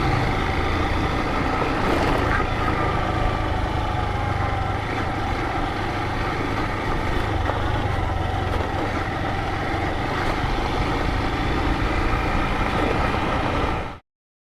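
Motorcycle engine running steadily while riding, over road and wind noise, with the pitch wandering slightly; it all cuts off suddenly near the end.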